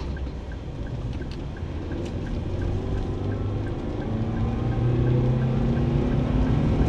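Car engine and road rumble heard from inside the cabin while driving at about 40 km/h. The engine note grows louder and rises in the second half as the car speeds up. A faint regular ticking is heard in the first half.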